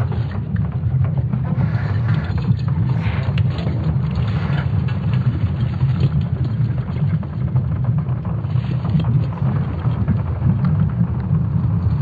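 Sonification of Earth's magnetic field made from ESA Swarm satellite measurements: a steady deep rumble with a rustling, crackling texture over it, rising in short swells a few times.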